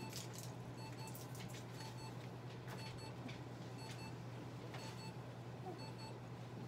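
Electronic beeper on clinic equipment sounding short double beeps about once a second, over a steady low hum, with a few faint clicks.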